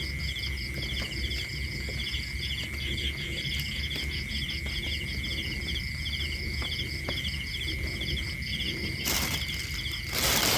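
Night chorus of crickets and other insects: a steady high ringing with rapid pulsed trills repeating over it. About nine seconds in, a loud hiss of noise comes in over the chorus.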